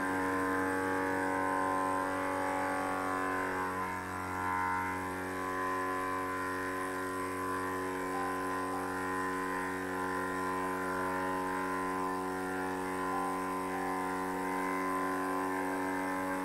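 Small milling machine running and cutting into metal: a steady drone of many held tones from the spindle motor and cutter, with a brief dip in loudness about four seconds in.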